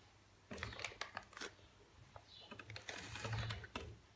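Plastic sweet packet crinkling and crackling in a run of irregular short crackles, starting about half a second in, as gummy jelly cola bottles are emptied from it onto a plate.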